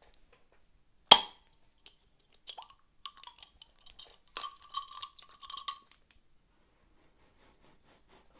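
Swing-top glass bottle being opened: one sharp snap about a second in, then a few seconds of light clinking as the metal wire clasp and stopper knock against the glass neck.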